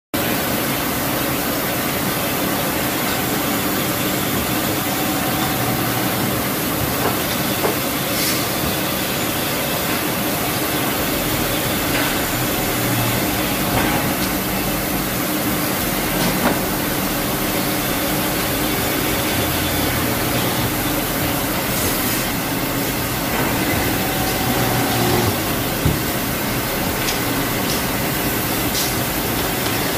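Hydraulic multi-spindle vertical drilling machine (SEMAC SMBL-206, 16 vertical drill spindles) running steadily with a dense whir and hiss, broken by a few short sharp knocks.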